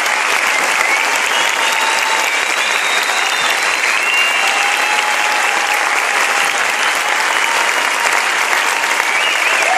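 A large concert-hall audience applauding steadily after an orchestral performance, with voices calling out over the clapping.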